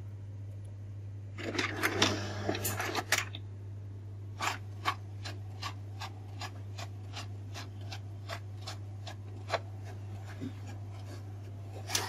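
HP Ink Tank 315 inkjet printer running a black copy: a clattering burst as the job starts, then an even run of mechanical clicks, about two or three a second, as the print mechanism works through the page, with another clatter near the end as the printed page comes out.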